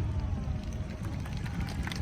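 Low rumble of a fireworks volley dying away, with faint crowd voices.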